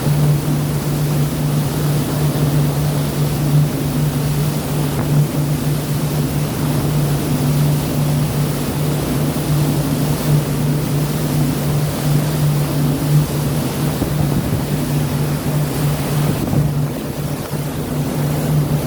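A boat's engine droning steadily under a rush of sea water and wind noise.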